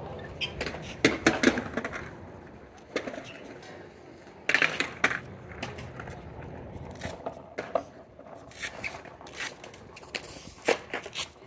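Skateboard on a concrete bowl: scattered sharp clacks and knocks of the board, with a few short louder bursts around one second in and again about four and a half seconds in.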